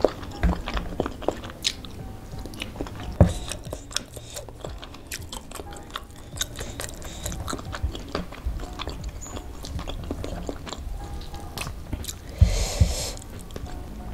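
Close-miked eating sounds: biting and chewing crispy fried chicken with rice, with many small wet clicks and a louder crunch near the end.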